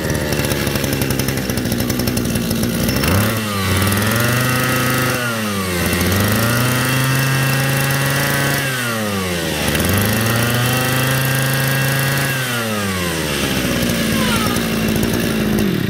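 Shindaiwa 231 two-stroke brush cutter engine test-run after starting: it idles, is revved up three times with each rev held a couple of seconds before dropping back, then idles again and cuts off at the end.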